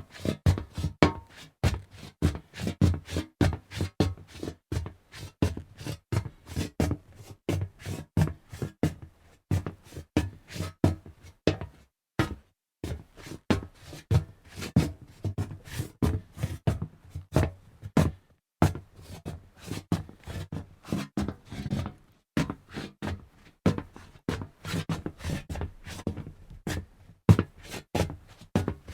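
Footsteps on hollow metal: rapid, uneven footfalls, each a knock with a short, resonant ring, broken by a few brief pauses.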